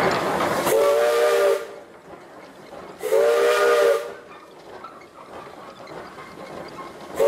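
Steam whistle of a 1915 Baldwin 0-6-2T tank locomotive giving two blasts of about a second each, about two seconds apart, then the start of a short third toot at the very end; each blast sounds several notes at once. A loud hiss of steam runs under the first blast and stops with it.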